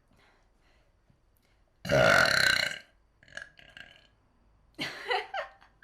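A woman burps once, a single burp of about a second, followed by a couple of shorter, quieter sounds.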